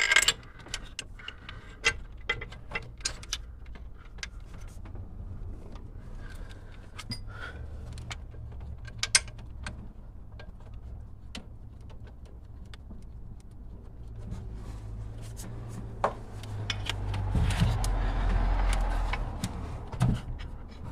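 Metal parts being handled and set in place: scattered clicks and clinks of a steel engine-mount bracket and its bolts being test-fitted. A louder rushing noise with a low rumble runs for a few seconds near the end.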